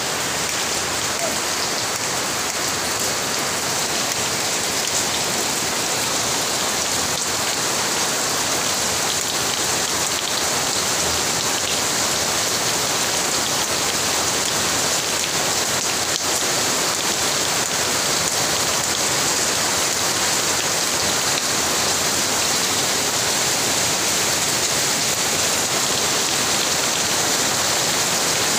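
Steady, even hiss with the character of heavy rain; no single sound stands out.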